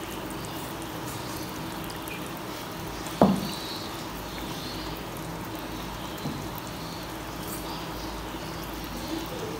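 Eggs over a potato mixture cooking gently in a non-stick frying pan on low heat, a soft steady sizzle, while a wooden spatula spreads the yolks; one sharp knock about three seconds in and a lighter one a few seconds later.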